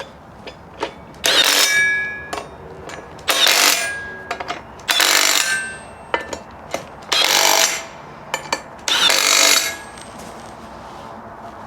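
Power tool run in five short bursts, each under a second, with sharp clicks and knocks between them.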